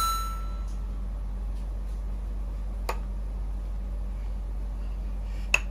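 Steady low hum of room noise, with a spoon tapping against a small glass jar: one faint click about halfway through and two sharper clinks near the end.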